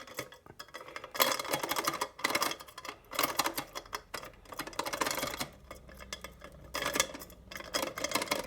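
A bent paperclip jiggled in the wafer lock of a small book safe: rapid metallic clicking and rattling in several spells of a second or two as the wafers are worked.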